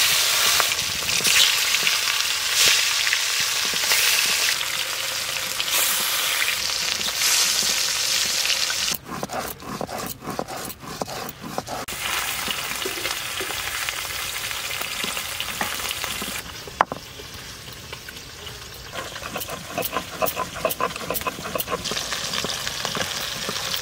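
Fish slices frying in hot mustard oil in a metal karahi. A loud sizzle as the pieces go in settles after about nine seconds into a lighter crackling sizzle, with the occasional clink of a metal spatula against the pan.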